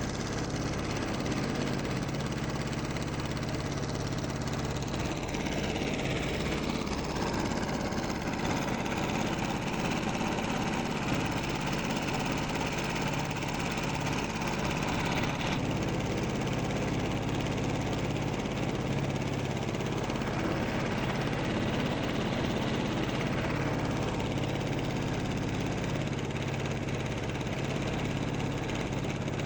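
An engine running steadily. A higher rushing noise joins it from about six seconds in and fades out again a little before the end.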